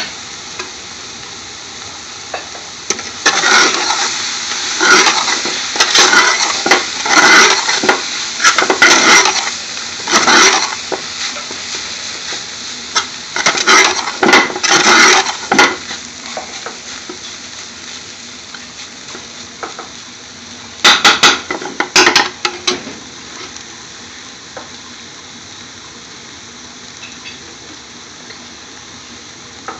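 Chopped spinach sizzling in hot oil with garlic and onions in a large metal pot, just added to the pan. A metal spoon stirs and scrapes it against the pot in several loud bouts through the first half, and once more about two-thirds of the way in, over the steady sizzle.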